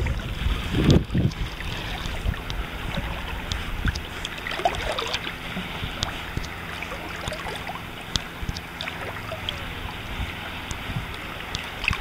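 Water lapping and splashing around a dog swimming in shallow water, with many small drips and trickles. A short gust of wind on the microphone about a second in.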